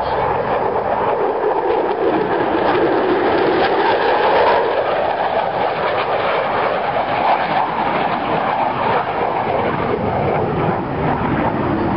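Steady, loud aircraft engine noise from a military aircraft flying at the air show.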